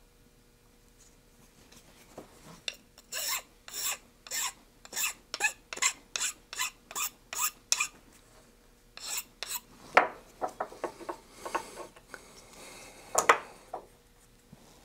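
Hand file rasping back and forth across the edge of a small piece of PC board to smooth it, in regular strokes about two a second, then a sharp knock about ten seconds in followed by shorter, quicker strokes.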